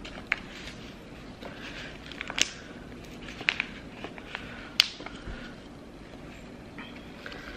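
Potting soil being scooped with a hand trowel and pressed into a small plant pot: soft scrapes and rustles with a few sharp ticks of the trowel against the pot.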